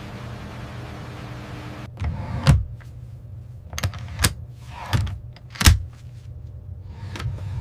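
Low steady mechanical hum with a handful of sharp clunks and clicks at irregular intervals, starting about two seconds in. Three of the clunks are clearly louder than the rest.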